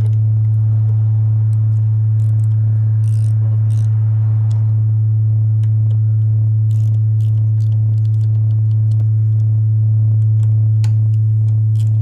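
Steady low 109 Hz sine test tone played through an MBL 101 E Radialstrahler's midrange 'melon' driver, with scattered light metallic clicks from a 3 mm hex socket wrench. The wrench is tightening the driver's mounting screws while the tone plays, to centre the voice coil so that it stops buzzing.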